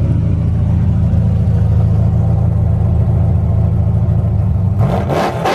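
Pickup truck's engine idling with a deep, steady, evenly pulsing rumble. About five seconds in, a brighter, louder sound cuts in over it.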